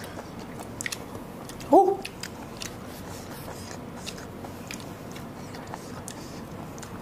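Chewing and crunching of sour unripe green mango, close to lapel microphones, heard as a scattered run of small crunches and clicks. About two seconds in, a short, loud vocal yelp with a quickly rising pitch.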